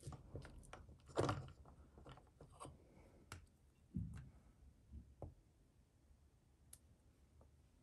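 Small wooden stamps being inked on a little ink pad and pressed onto paper: scattered soft taps and clicks, with a dull knock about four seconds in.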